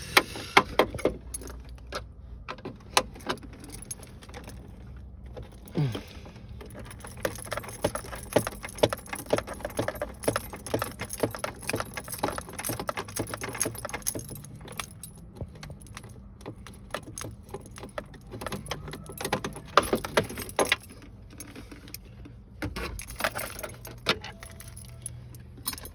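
Rapid metallic clicking and clinking of a hand tool working loose a screw in a car's dashboard trim, in runs broken by short pauses.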